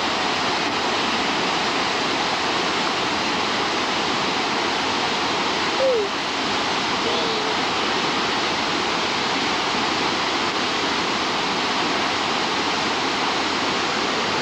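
Waterfall rushing with a steady, unbroken roar of falling water. About six seconds in there is one short, falling cry.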